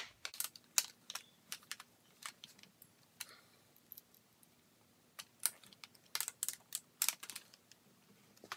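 Ratcheting wrench clicking and light metal knocks as it is worked on the tight nut of a right-angle drill attachment. The clicks come in irregular runs, thickest in the second half.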